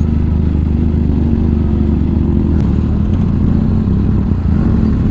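Motorcycle engine running steadily while riding, a low even engine note with no change in speed.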